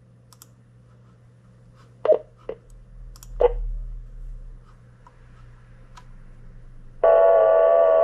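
Audio of a Xiegu G90 HF receiver tuned across the 30-metre band in LSB: a low hum and hiss with a few sharp clicks about two to three and a half seconds in, then about seven seconds in a loud, steady buzzing tone with many overtones cuts in, all limited to the narrow voice bandwidth of the receiver's filter.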